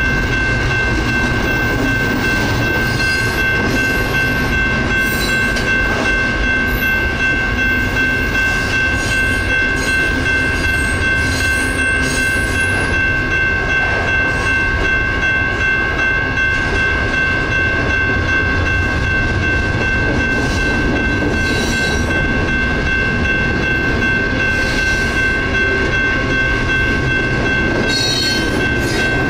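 Union Pacific double-stack intermodal freight train rolling steadily through a grade crossing, its wheels rumbling over the rails with scattered clanks and clickety-clack. The crossing bells ring without pause over it.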